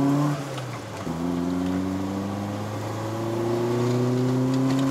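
Toyota AE86's 4A-GEU twin-cam four-cylinder engine accelerating hard through the gears, heard from inside the cabin. The revs drop at an upshift about half a second in, then climb steadily for about four seconds in the next gear, with another upshift right at the end.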